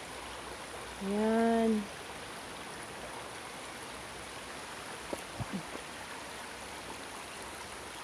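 Steady rush of a shallow creek flowing over rocks, with a few faint clicks about five seconds in.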